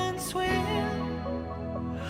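Background music: a song with a melody gliding over sustained bass notes.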